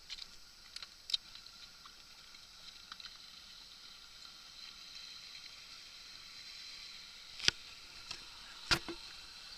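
Water lapping and sloshing against the side of an inflatable boat drifting on calm sea, a steady faint hiss. A few sharp knocks break in, a small one about a second in and two louder ones near the end.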